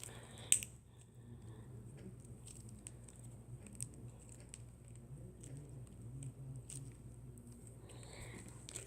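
Faint sticky squishing and small clicks of colour-changing putty being handled and squeezed, with one sharper click about half a second in, over a low steady hum.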